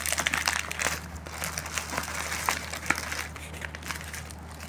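Plastic courier packaging crinkling and rustling as it is pulled open by hand, in irregular crackles, busiest at the start and again about three seconds in.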